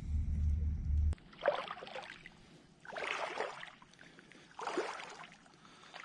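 Footsteps wading through shallow seawater: three swishing, sloshing steps about a second and a half apart. A low rumble cuts off about a second in.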